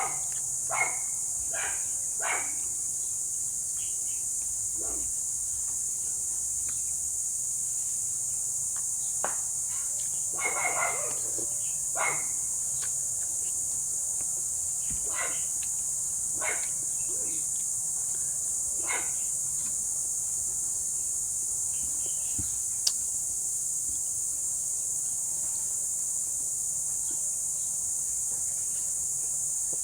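Steady high-pitched chorus of crickets, with a few short clicks and small sounds scattered through it and one sharp click about 23 seconds in.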